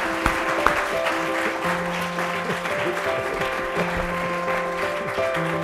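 Audience applauding, the separate claps fading within the first second, with background music of long held notes.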